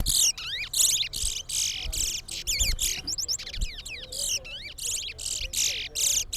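Competing towa-towa seed finches singing, rapid high warbling song phrases following one after another without a break.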